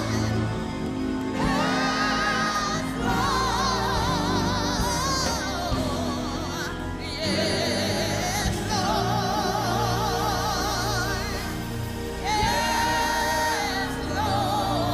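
Gospel singing with strong vibrato over sustained organ or keyboard chords.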